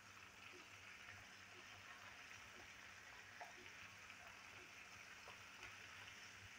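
Chicken pieces deep-frying in hot oil in a wok: a faint, steady sizzle with small pops about once a second.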